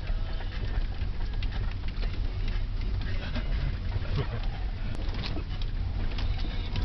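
Steady low rumble of a vehicle driving on a rough road, with scattered small clicks and rattles.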